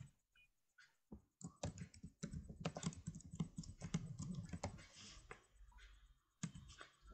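Typing on a computer keyboard, a fast irregular run of soft key clicks picked up by a laptop microphone. The typing is densest from about one and a half to five seconds in, then thins to a few scattered clicks.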